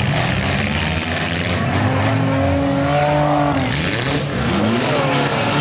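Several demolition derby cars' engines running and revving together over a steady din, their pitches rising and falling.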